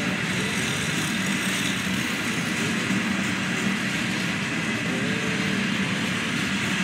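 Freight train of Herzog open-top hopper cars rolling steadily past, with a continuous, even noise of steel wheels running on the rails.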